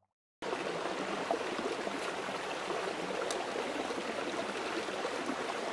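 Steady rush of running water, cutting in just under half a second in after a moment of silence.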